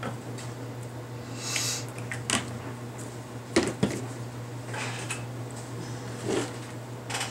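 Small ink spray bottles knocking and clicking lightly as they are set back into a plastic basket on a tabletop, a few separate taps spread out over several seconds.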